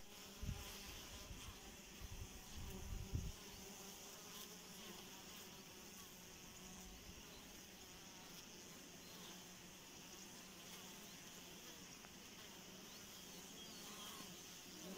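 Honeybees buzzing at a hive entrance: a steady hum of many bees landing, crowding and flying in and out. A few low rumbles in the first three seconds, the loudest about three seconds in.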